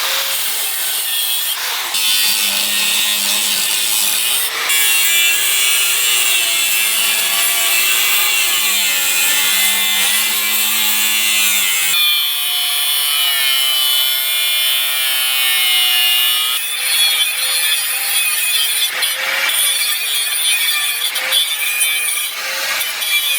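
A power tool working steel: a continuous grinding sound whose motor pitch sags and recovers as the load changes, with the tone shifting about halfway through and a few short knocks.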